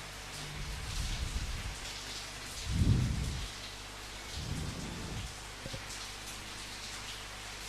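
Steady rain falling, with low rumbles of thunder three times, the loudest about three seconds in.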